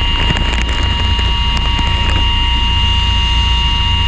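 Steady low rumble of a fishing boat's engine, with wind buffeting the microphone and a steady high whine over it. A few light clicks come in the first two seconds.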